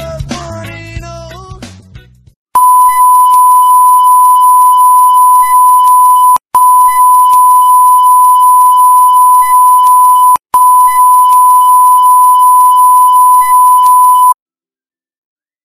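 Background music fades out, then a loud, steady, high-pitched TV test-card tone sounds for about twelve seconds. It breaks off twice for an instant and then cuts off suddenly.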